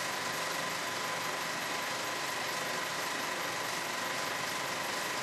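Steady hiss with a faint, even whine running under it; no separate event stands out.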